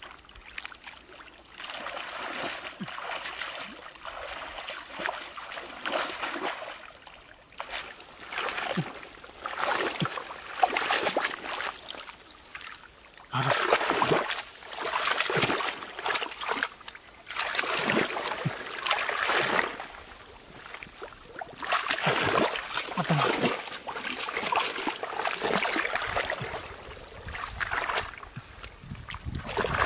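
Muddy shallow water sloshing and splashing as a man's hands and arms churn through the mud, groping for catfish. The sound comes in irregular swells of a second or two, with short lulls between.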